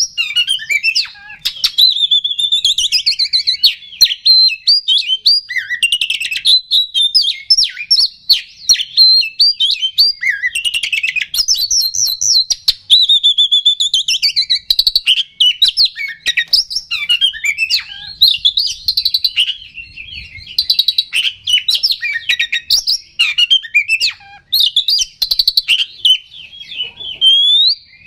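Oriental magpie-robin singing loudly and almost without pause: a long run of varied whistles, sliding notes and fast chattering phrases. It is the bird's full, aggressive song of the kind used as a lure to rouse other magpie-robins.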